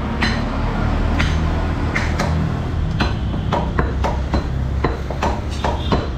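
Meat cleavers chopping beef on wooden stump chopping blocks: two butchers' irregular chops, about two to three a second, over a steady low hum.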